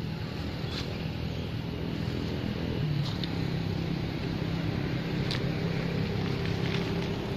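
Steady low motor hum, with a few faint ticks over it.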